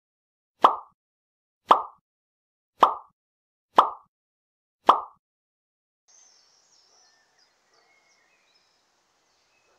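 Five sharp percussive hits, about one a second, each dying away quickly: the sound effect of a channel logo intro. After about six seconds, faint high chirping over quiet outdoor ambience.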